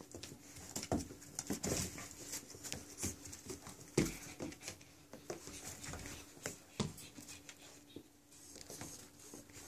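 A Chihuahua puppy and a Lab/Pit mix puppy wrestling on a puppy pad over a tile floor: irregular scuffling, claws scrabbling and the pad crinkling, with a few sharper knocks.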